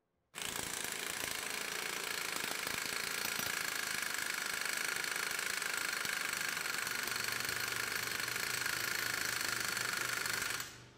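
Capri Twin Power CP35205 half-inch pneumatic impact wrench hammering continuously in reverse against a torque tester, at full throttle, building torque. It starts a moment in and cuts off near the end.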